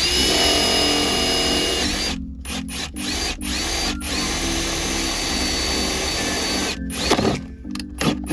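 Electric drill running in bursts with a motor whine, stopping and starting several times. A short, louder noise comes about seven seconds in.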